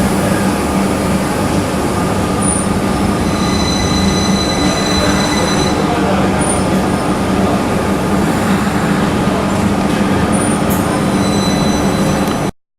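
Class 333 electric multiple unit running through the station, with a steady electric motor whine over the rolling noise and brief high wheel squeals now and then. The sound cuts off suddenly near the end.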